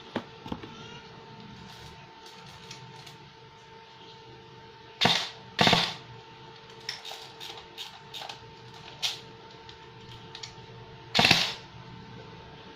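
Airsoft M4A1 electric gun on its stock 120 spring firing single shots through a chronograph: two sharp shots about half a second apart around the middle and a third near the end, with lighter clicks between them.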